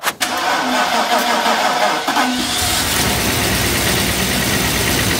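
Mercedes W124 E420's 4.2-litre V8 cranked by the starter: a click, about two seconds of cranking, then the engine catches and runs steadily. The car has been sitting for three years and would not start before.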